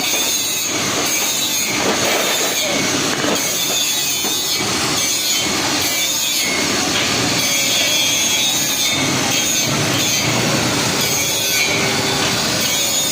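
Hacksaw cutting a steel rod by hand, in steady back-and-forth strokes of a bit more than one a second, each stroke a harsh metallic rasp.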